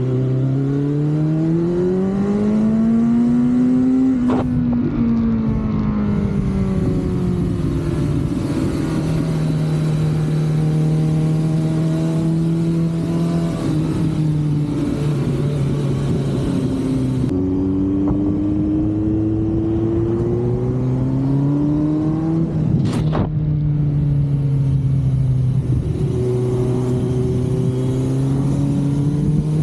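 Kawasaki Z900 inline-four engine and exhaust under way, climbing in revs and shifting up with a short tick about four seconds in, then holding steady. It drops back, climbs again to a second upshift about two-thirds through, and rises once more near the end, with steady wind rush over the microphone.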